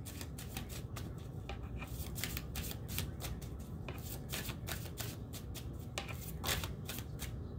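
A tarot deck being shuffled by hand, the cards slipping from one hand to the other in a run of quick, irregular soft clicks, a little louder about six and a half seconds in.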